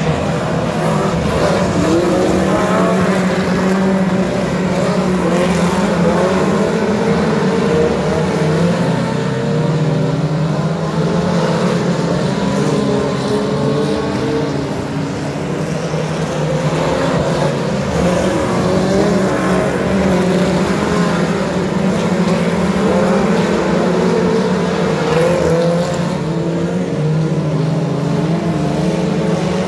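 Several ministock race cars' four-cylinder engines running together in a race. The engine pitches waver up and down over a steady low drone as the cars lap.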